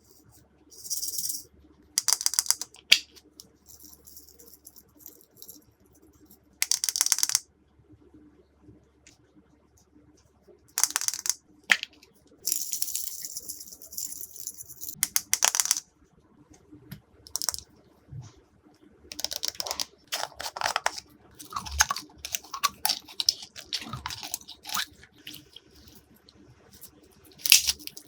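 Glossy slime being handled and mixed with small add-ins: repeated bursts of crisp crackling and clicking, several seconds apart, some short and some lasting a second or more.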